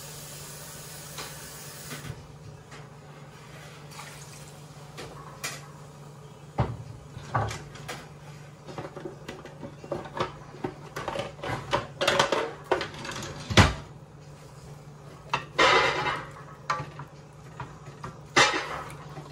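Water pouring into a stainless steel pot for about the first two seconds, then irregular clattering and knocking of kitchen utensils and containers being banged about by a toddler, growing louder and busier in the second half. Near the end a wooden spoon knocks against the pot as the chicken is stirred.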